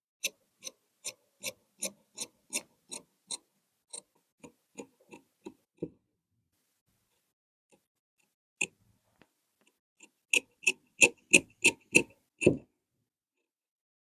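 A tailor's hand tools at work on cloth: a steady run of sharp clicks, about two or three a second, for around six seconds. After a pause with one more click comes a quicker, louder run near the end.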